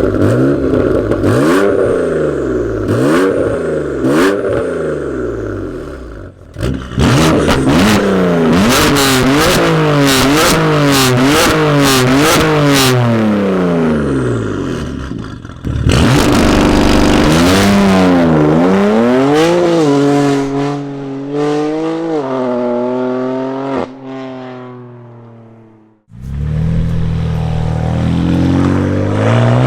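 BMW M4's twin-turbo straight-six through a valved sports exhaust with a burble tune, revving hard up through the gears: the pitch climbs and drops with each shift, with bursts of crackles and pops. Several separate runs follow one another, with abrupt changes about 6, 16 and 26 seconds in.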